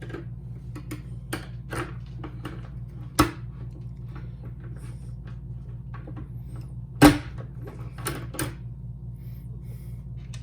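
Clicks and knocks of a door latch and handle mechanism being handled and fitted, with two louder knocks about three and seven seconds in. A steady low hum runs underneath.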